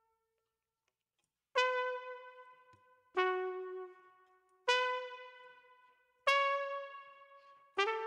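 Trumpet samples auditioned one at a time: after a second and a half of silence, five single notes start about every one and a half seconds, each with a sharp attack that fades away, the pitch changing from note to note.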